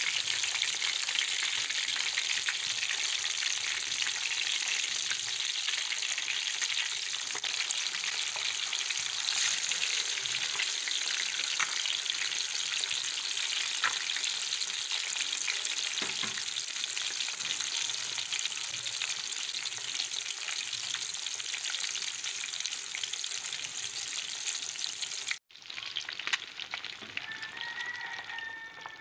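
Fish pieces sizzling steadily as they shallow-fry in hot oil in a pan, with a few light knocks of a wooden spatula turning them. Near the end the sizzle drops out for an instant and carries on softer and duller.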